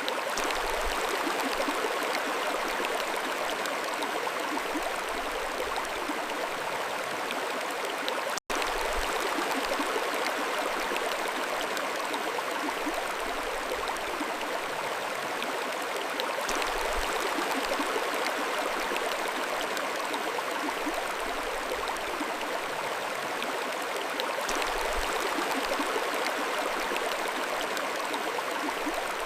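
Mountain stream running steadily, a continuous rush of water. The sound cuts out for a split second about eight seconds in.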